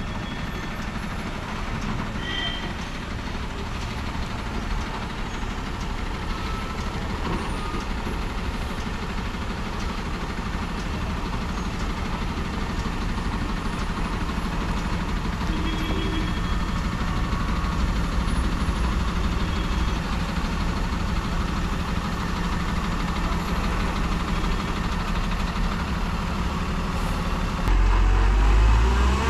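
Heavy diesel lorry engine running at low speed, its low rumble growing gradually louder as the truck comes closer. Near the end it suddenly gets louder and the engine note starts to rise as it pulls away under power.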